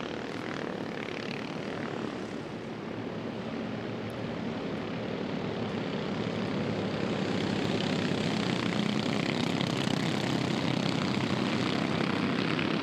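A pack of Junior 2 off-road race karts running at racing speed, their small engines blending into one steady drone that grows louder over the first several seconds.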